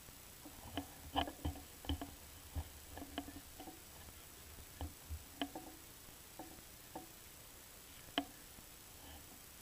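Irregular light clicks and knocks, about two a second, the loudest about a second in and a single sharp click near the end.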